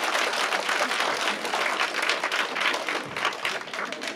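Crowd applauding with many hands clapping, thinning out near the end.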